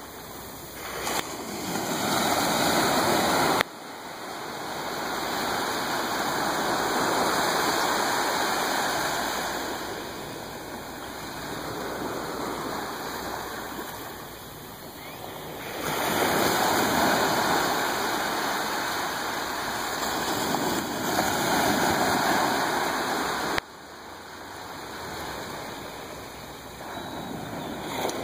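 Small waves washing onto a sandy beach, the surf swelling and ebbing every several seconds, with two abrupt changes in level where the recording is cut.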